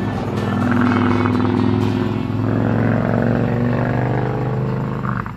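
A vehicle engine running steadily and loudly, holding an even pitch with only slight changes.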